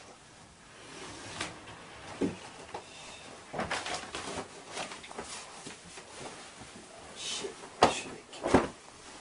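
Doors and drawers being opened and shut in a room search: scattered knocks and rattles, with two sharp bangs near the end.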